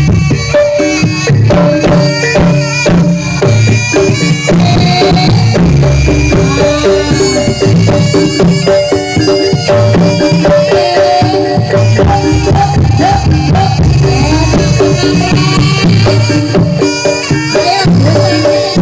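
Javanese jaranan ensemble music: hand-drum strokes under repeating held tones from gongs and metal keys, with a bending melody line above.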